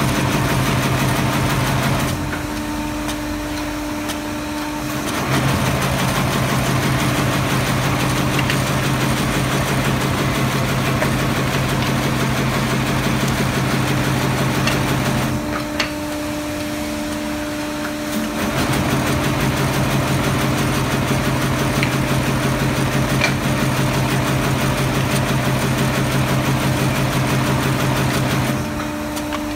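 Honyeu HY-A570 five-axis brush machine, with three drills and two tuft-filling heads, running as it drills brush blocks and fills them with bristle tufts: a steady mechanical hum with dense clattering noise. The hum drops away twice for a few seconds and again near the end.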